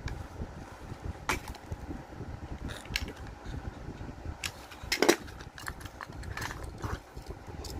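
Plastic blister packaging and cardboard of a Hot Wheels die-cast car being handled and opened: scattered crackles and clicks, the loudest about five seconds in.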